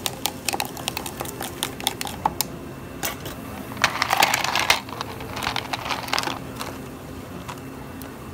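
A run of sharp clinks and clicks at a ceramic mug, then ice cubes tipped from a plastic cup clatter into the mug about four seconds in. A few quieter clinks and rustles follow as the drink is stirred.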